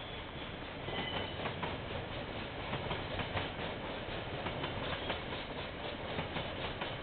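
KiwiRail freight train's container wagons rolling past with a steady rumble, their wheels giving a repeated clickety-clack over the rail joints.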